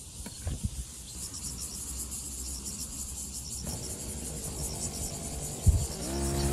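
Insects chirring in quick, even pulses. Near the end comes a sharp knock, and then the small engine of a push-type grass trimmer starts up with a steady note.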